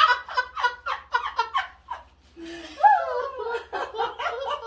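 Women laughing in quick, breathy bursts that die away briefly about two seconds in, then start up again with a rising and falling whoop.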